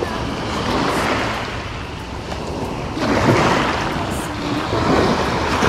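Waves washing onto the beach, with wind buffeting the microphone; the surf swells louder about three seconds in and again near the end.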